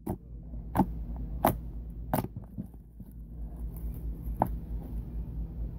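Fingers pressing and poking a soft slime, making sharp popping clicks about every 0.7 s, four in a row, then softer squishing with one more pop about four and a half seconds in. A steady low hum runs underneath.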